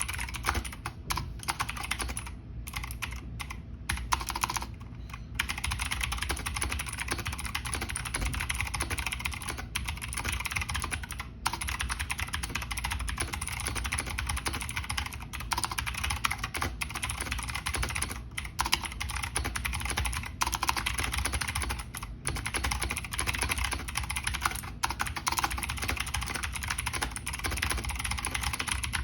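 Fast continuous typing on a Razer BlackWidow V3 Mini mechanical keyboard with clicky Razer Green switches: a dense clatter of sharp key clicks, broken by a few short pauses.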